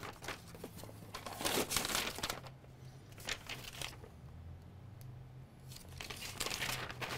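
Sheets of paper and cardboard packaging rustling and crinkling as they are handled. The rustling comes in irregular bursts, with a quieter stretch in the middle and more rustling near the end.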